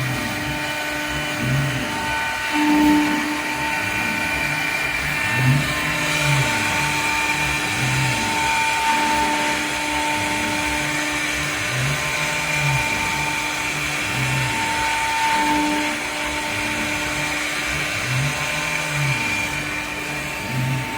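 CNC router running a cutting job: a steady high spindle whine that swells and eases as the cut loads it, with the lower whir of the axis motors rising and falling in pitch as the gantry moves back and forth, about every three seconds.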